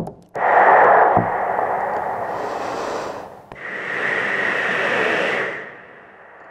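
Two long breathy hisses of air blown out through the lips, one after the other. The first lasts about three seconds, and the second, about two seconds long, fades out near the end.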